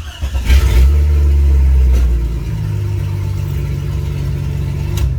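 Jeep Cherokee XJ engine started and running, at its loudest for the first two seconds and then settling to a steady idle. It cuts off right at the end.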